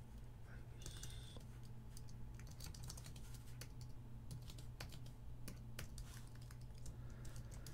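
Typing on a computer keyboard: faint, irregular key clicks in quick runs, over a steady low hum.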